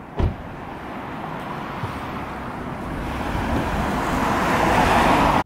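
A car door shuts with a single thump, then the rush of a car on the road grows steadily louder.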